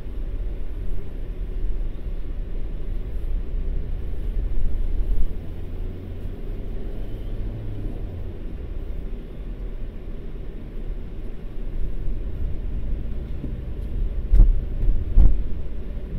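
Car driving, heard inside the cabin through a phone's microphone: a steady low rumble of engine and road noise, with two thumps about a second apart near the end.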